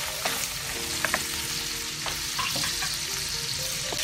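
Chopped white onion sizzling in melted butter in a frying pan, stirred with a wooden spoon that knocks and scrapes against the pan several times.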